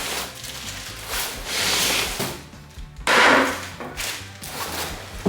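Background music with a steady beat, overlaid by a few bursts of rustling and knocking from parts being handled, the loudest about three seconds in.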